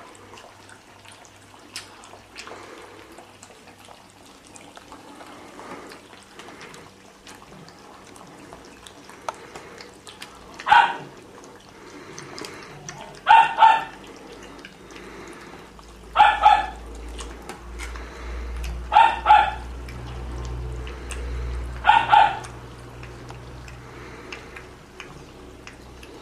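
Puli puppies lapping milk from a shallow bowl, a soft continuous wet lapping. A dog's short, high-pitched yips cut through five times, some in quick pairs, between about ten and twenty-two seconds in.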